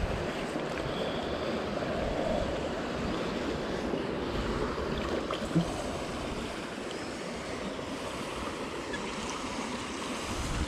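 Steady rush of flowing river water mixed with wind buffeting the microphone, with a single light knock about five and a half seconds in.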